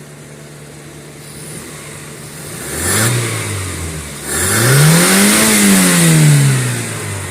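Vehicle engine idling, then revved twice: a short blip about three seconds in, then a longer rev that climbs and falls back toward idle. The engine is being revved to show its movement and vibration on loose engine mounts.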